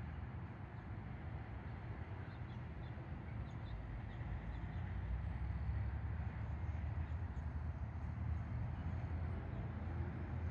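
Outdoor ambience: a steady low rumble with faint, scattered bird chirps over a few seconds in the middle.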